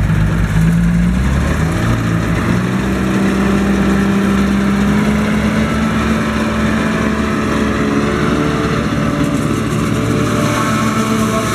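Unimog 406's six-cylinder diesel running hard as it drives a PZ MH 80 S maize chopper, its engine note rising about two seconds in and then holding steady under load.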